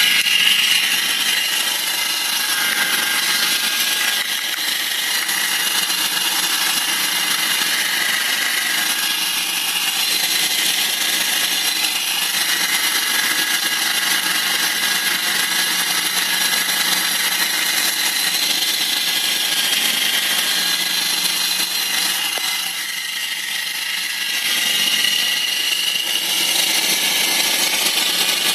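BMW 318i's M43 four-cylinder petrol engine running with a strange, steady, high-pitched mechanical noise of unknown cause. The noise eases briefly about three quarters of the way through, then returns.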